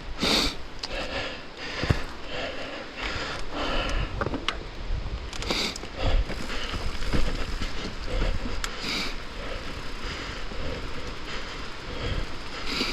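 Downhill mountain bike riding over a dirt and rock trail: tyres rolling and skidding, with frequent short clatters and knocks from the bike over rough ground and a low rumble throughout.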